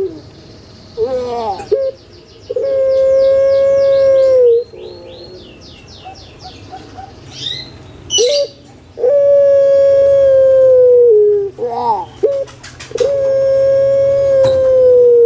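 Male puter pelung, a Javanese song variety of the domestic ringneck dove, cooing: a short rising note followed by one long, steady drawn-out coo of about two seconds, three times over. A quicker, high-pitched twittering runs alongside the first coo.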